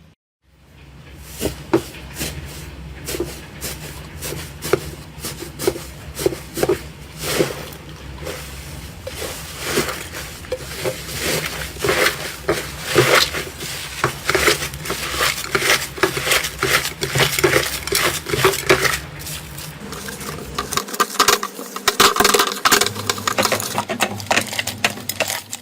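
Slime being squeezed and pressed by hand, making a dense, irregular run of wet clicks and pops.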